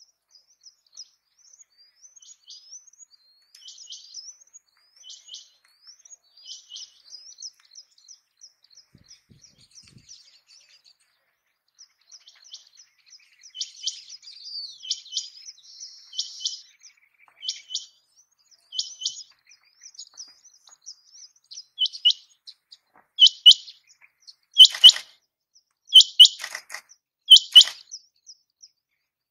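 Rain quail calling: faint, high chirping notes through the first half, then a run of loud, sharp calls about one and a half seconds apart in the last several seconds.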